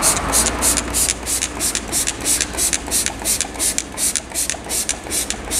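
Hand trigger spray bottle misting wheel cleaner onto an alloy wheel: rapid pumps of the trigger, each a short hiss, about four a second. A steady low hum runs underneath.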